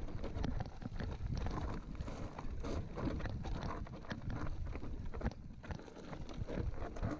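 Mountain bike rolling over a stony, gravelly singletrack: tyres crunching on loose stones and the bike rattling over bumps in a dense run of clicks and knocks over a low rumble, easing briefly about five seconds in.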